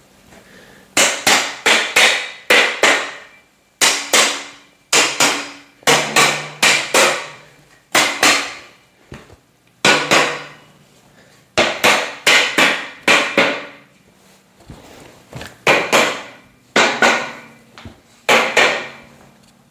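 Rubber mallet striking the steel joints of a metal bed frame to seat them, in quick groups of two to four blows with short pauses between, each blow ringing briefly in the metal.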